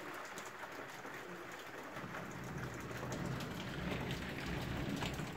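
Steady rain falling, with many small drop ticks. A low rumble builds about two seconds in and fades out near the end.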